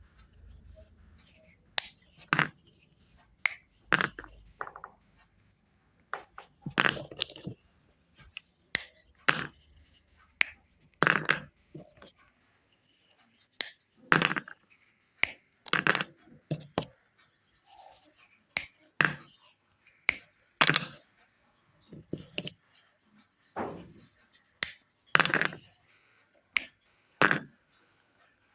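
Wet chalk being crushed and broken, giving short, sharp crunching cracks at irregular intervals, about one every second or so.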